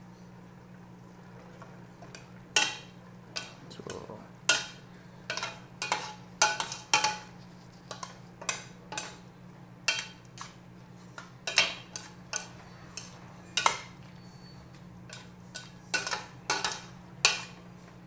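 Metal spoon knocking and scraping against the side of a stainless steel pot while a thick mixture of chopped chicken gizzards and hearts is stirred: irregular clanks starting about two and a half seconds in, over a steady low hum.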